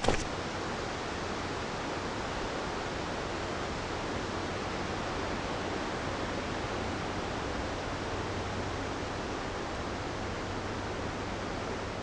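Steady, even rushing of flowing water, such as a creek or small waterfall.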